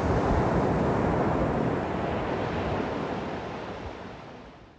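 Ocean surf: waves breaking and washing up the shore in a steady rush, fading out near the end.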